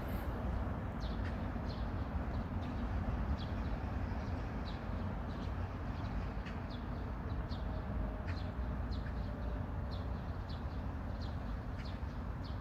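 Small birds chirping: short, high chirps, one or two a second, over a steady low rumble.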